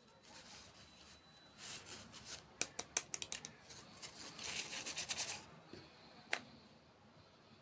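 Close-miked crisp crackling and sharp clicks: a dense run of them through the middle, then one sharp click near the end.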